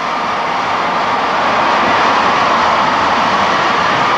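Large football stadium crowd cheering steadily, a sustained roar of many voices after a made field goal.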